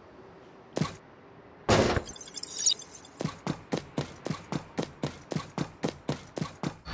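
Cartoon sound effects for a large robot: a single click, then a loud thud followed by a glassy tinkle. From about halfway through comes a steady run of clanking robot footsteps, about four a second.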